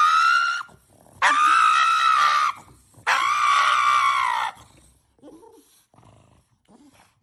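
Pug letting out long, high-pitched screams of protest, three in a row of about a second and a half each, then falling quiet apart from a few faint small sounds. This is a dramatic protest at being handled on its owner's lap, not a bark.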